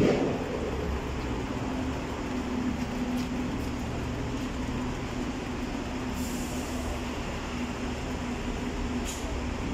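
Steady low city background hum with a constant low drone, a thump right at the start and a brief hiss about six seconds in.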